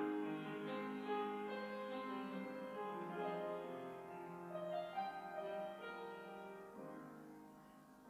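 Soft keyboard accompaniment playing an instrumental interlude of a hymn tune, with held notes and chords that fade away near the end.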